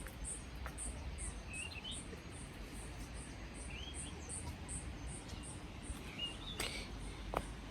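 Insect chirping steadily in a high, even rhythm, about two chirps a second, with a few short bird chirps scattered among them.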